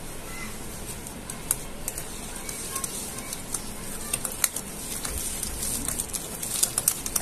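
A small wire whisk scraping and clicking against a metal bowl while stirring hung curd and powdered sugar together into a thick shrikhand base. The clicks come more often toward the end as the stirring speeds up.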